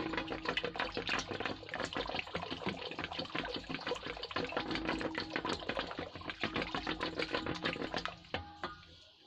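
Yogurt being beaten by hand in a steel pot with a wooden-handled churner: rapid sloshing with quick clicks of the beater against the pot, dying away near the end.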